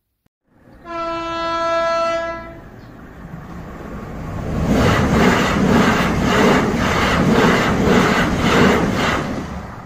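A full-size passenger train sounds one long horn note, then passes by, its wheels clattering over the rail joints at about two beats a second, fading out near the end.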